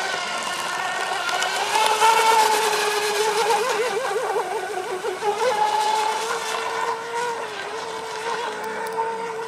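Electric RC sport hydroplane (ML Boatworks GP-265 hull, TP Power brushless motor on 2S LiPo) running at speed: a high, steady motor-and-drive whine with overtones. It is loudest about two seconds in, wavers in pitch between about three and a half and five and a half seconds in, then fades as the boat runs away.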